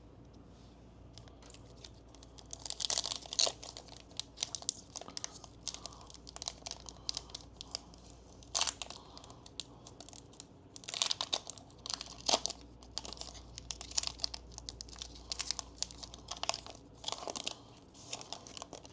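Foil wrapper of a Pokémon booster pack being crinkled and torn open by hand, in irregular crackling rips, loudest about three seconds in and again around the middle.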